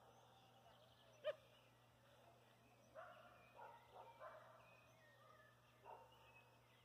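Faint, distant dog barking: one sharp bark about a second in, a few more close together between three and four and a half seconds in, and one more near six seconds.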